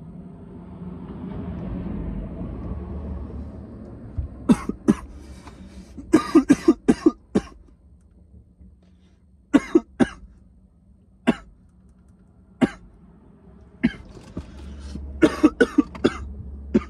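A man breathes out a long breath of vapour, then coughs in repeated harsh fits: a quick run of coughs, a few single coughs, and another run near the end. It is a cougher's fit brought on by a hit from a cannabis vape cartridge on a high-voltage battery setting.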